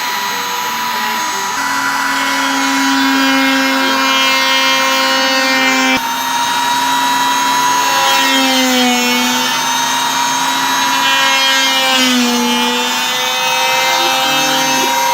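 Homemade CNC router machining: a steady motor whine over cutting noise, the whine dipping in pitch twice in the second half.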